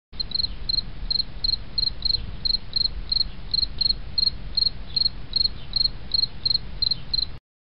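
Insect chirping in a steady rhythm, about three short high chirps a second, over a low rumble; it cuts off suddenly near the end.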